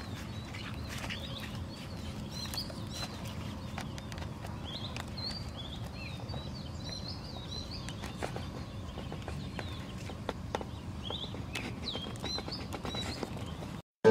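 Small birds chirping outdoors, many short scattered calls over a low steady rumble. The sound cuts off suddenly near the end.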